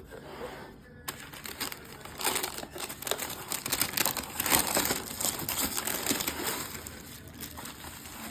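Irregular rustling and crinkling with many small clicks, the sound of something being handled close up.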